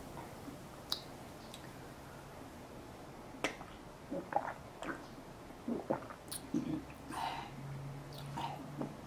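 A woman sipping from a small cup and swallowing, with faint lip smacks and small mouth clicks scattered through.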